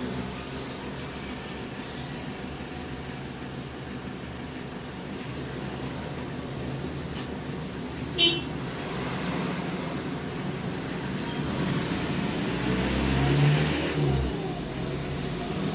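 Steady low hum of motor vehicle engines in road traffic, with one engine swelling louder about 13 seconds in. A single sharp click comes about 8 seconds in.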